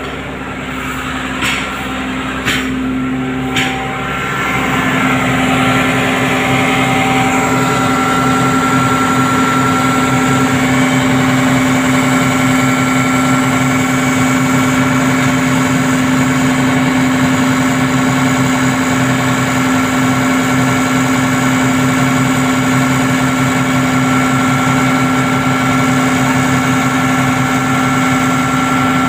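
Cat 320D excavator's diesel engine running steadily, growing louder about four seconds in and then holding an even note. A few sharp knocks sound in the first few seconds.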